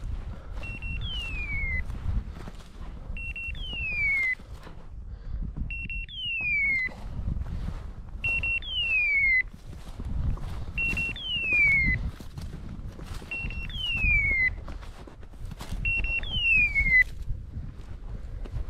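Electronic beeper collar on a hunting dog sounding about every two and a half seconds: two short pips, then a falling, hawk-like screech, repeated seven times. Footsteps crunch in snow underneath.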